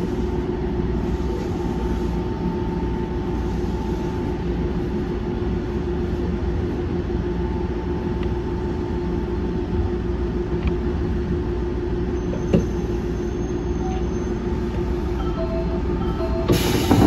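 Semboku 5000 series electric train running, heard from inside the cab: a steady low rumble from the wheels and track with a constant electric motor hum. About a second before the end a sudden loud rush of noise sets in.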